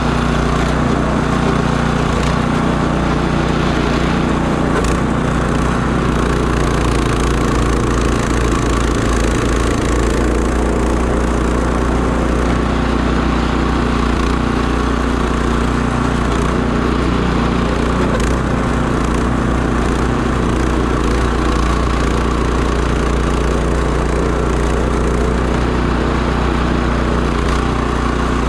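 Can-Am Defender side-by-side's engine running steadily.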